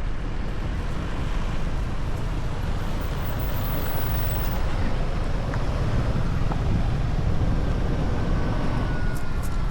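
Steady road noise of a moving vehicle, a continuous low rumble of engine and tyres.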